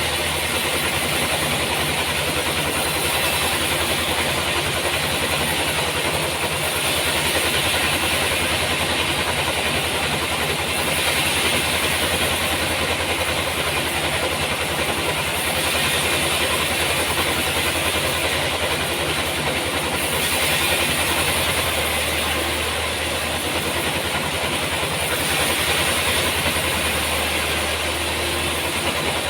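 Sawmill machinery running steadily: a constant low engine hum under a loud hiss that swells and eases every few seconds, as with a saw working through a trembesi log.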